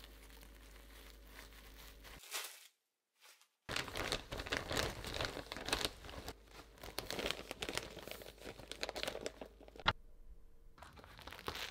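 Plastic zipper bag and cling-wrapped slices of brioche crinkling and rustling as they are handled and packed away, busiest in the second half, with one sharp click near the end.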